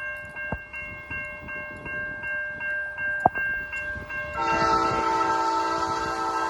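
Railroad crossing bell ringing with rapid, even dings while the gates are down, then about four seconds in a diesel locomotive's air horn blows one long, loud chord that carries on past the end. A single sharp knock sounds shortly before the horn.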